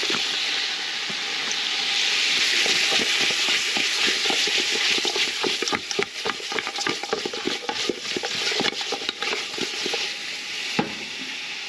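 Pork rib pieces sizzling in olive oil in an aluminium pot. From about three seconds in until near the end, the pot is shaken to toss the meat, adding a quick irregular clatter of pieces knocking against the pot over the steady sizzle.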